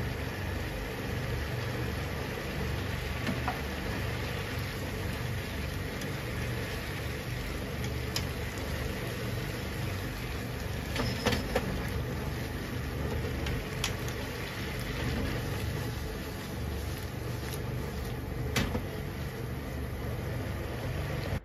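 Spaghetti cooking in its sauce in a frying pan, stirred and tossed with nylon-tipped tongs that click against the pan a handful of times, over a steady low hum.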